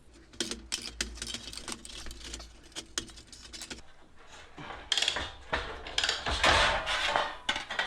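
Sheet metal being worked by hand on a bench: a quick run of small metallic clicks and clinks, then a longer, noisier stretch of handling from about five seconds in.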